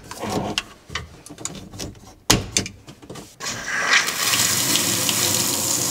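Clicks and knocks of hands working at the water supply shut-off valves under a kitchen sink, with one sharp knock about two seconds in. About three and a half seconds in, the newly installed pull-down kitchen faucet is opened and water runs steadily into the steel sink, the first water through the new faucet.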